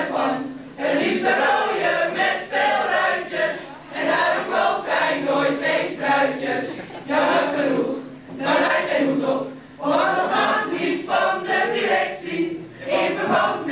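A mixed group of boys' and girls' voices singing together in chorus, in phrases with short breaks between them.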